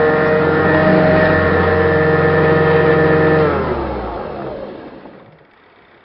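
Hoover 262 vacuum cleaner's motor running with a steady hum, then switched off about three and a half seconds in, its pitch falling as it winds down to a stop.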